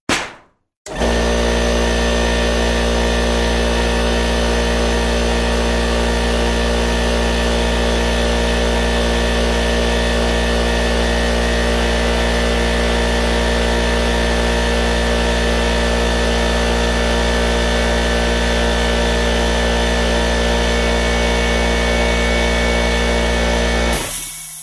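A motor or engine running steadily at one unchanging speed: a constant hum with many fixed tones over a strong low rumble. It starts abruptly about a second in, after a brief separate sound, and stops shortly before the end.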